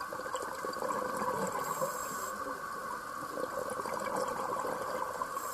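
Underwater ambience picked up by a diver's camera: a steady watery hiss with faint scattered crackles.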